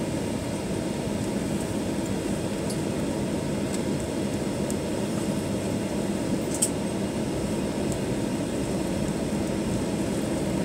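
Steady cabin rumble of a Boeing 737-900ER with CFM56-7B engines, heard from inside the cabin as it rolls along the runway after landing. A light click comes about two-thirds of the way in.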